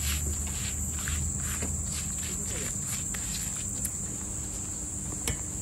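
A steady, high-pitched insect chorus. A single sharp click stands out about five seconds in.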